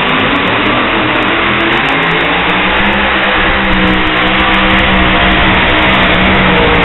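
Pulling tractor's engine running loud and steady at full power during a pull, with a low drone under a dense roar.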